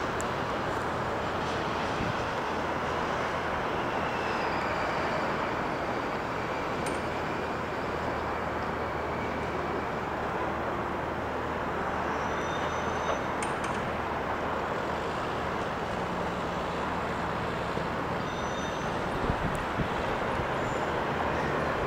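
Steady airport background noise: a continuous rushing hum with a low drone underneath.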